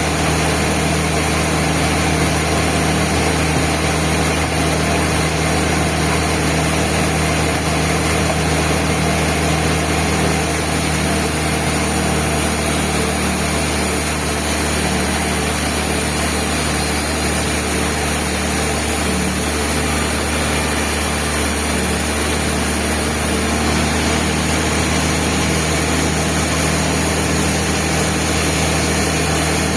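Band sawmill machinery running with a steady engine-like drone that holds the same pitch and level throughout.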